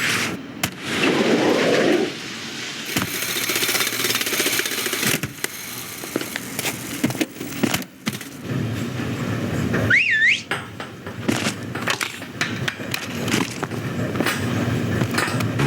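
Layered animated-film sound effects: steady vehicle and machinery noise with scattered clattering knocks. About ten seconds in comes a short, rising whistle-like squeal.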